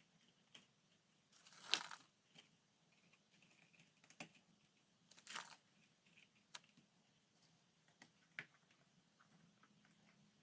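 Quiet, sparse handling sounds of food and lunchbox packing: a few soft rustles and light clicks, the loudest about two seconds in and another about five seconds in.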